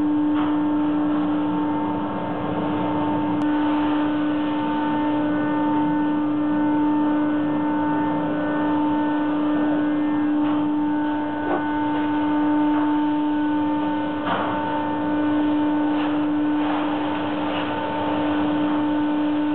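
Truck dumper machinery running with a steady hum that holds one constant tone while a wood-chip trailer is tipped. A few short knocks or rattles come through about halfway and again later on.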